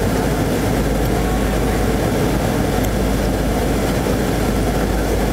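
Airliner cabin noise during descent: the engines and rushing airflow make a steady deep rumble under an even rush of sound.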